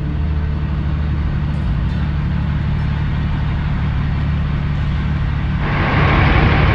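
Cummins ISX diesel of a 2008 Kenworth W900L running at low speed with a steady low drone as the truck creeps across a lot. About five and a half seconds in, a steady hiss suddenly joins it.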